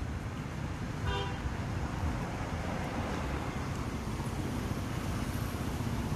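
Steady road traffic rumble, with a short vehicle horn toot about a second in.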